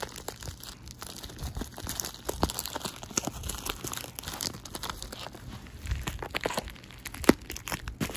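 Metallic foil bubble mailer crinkling and tearing as it is handled and opened by hand: an irregular run of crackles and rustles, with one sharper, louder crack about seven seconds in.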